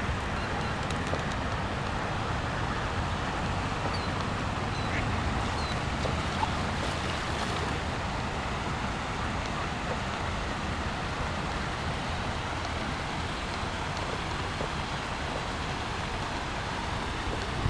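Ducks quacking now and then over a steady rushing noise.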